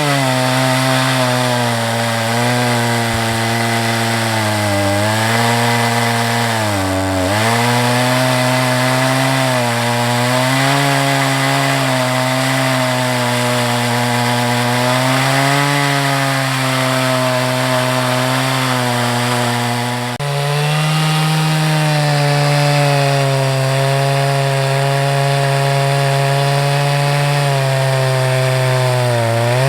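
Echo CS-590 Timber Wolf chainsaw on an Alaskan mill, running at high revs while ripping a white oak log into boards. The engine pitch dips and recovers several times, with the deepest dip about a quarter of the way in and a sudden shift in pitch about two-thirds through.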